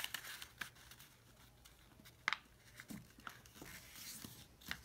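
Sheet of origami paper being folded in half and creased flat by hand: faint scattered rustles and crinkles, with one sharper crackle a little past two seconds in.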